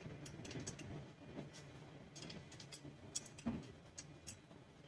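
Faint, irregular light clicks and ticks of a hand tool on metal as bolts are fitted and tightened on a Stihl FS400 brush cutter's engine casing, with one louder knock about three and a half seconds in.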